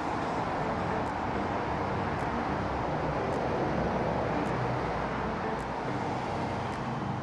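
Steady traffic noise from a motorway below, the tyres and engines of cars and lorries passing.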